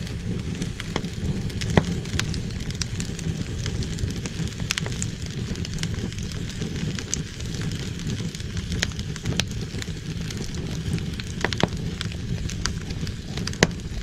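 Wood fire burning on a fireplace grate: a steady low rush of flames with frequent sharp crackles and pops from the logs, the loudest about two seconds in and again near the end.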